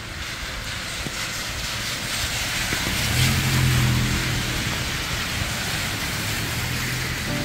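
A vehicle passing in the rain: a low engine hum and hiss that swell about three seconds in and ease off, over a steady hiss of rain.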